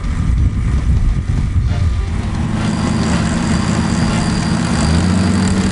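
Off-road 4x4's engine running steadily. The first two seconds are a rougher rumble, then it settles into an even note.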